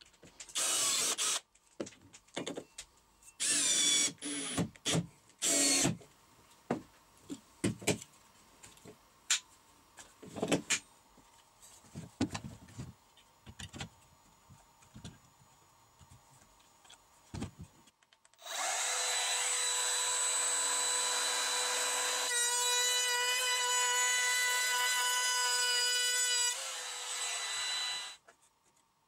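A cordless drill runs in four short bursts, each spinning up and down, drilling through a thin metal bracket into a pine board. Then there are scattered clicks and knocks as tools are handled. About two-thirds of the way in, a cordless trim router starts and runs with a steady high whine for about ten seconds, its tone shifting slightly partway through as it cuts a groove in the pine board, then stops.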